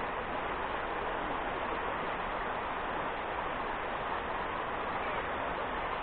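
Steady rush of river water running over rocks in shallow rapids.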